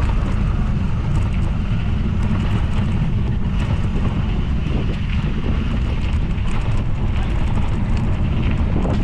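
Steady rushing wind noise buffeting the microphone, heavy in the low end, with faint ticks and rattles through it.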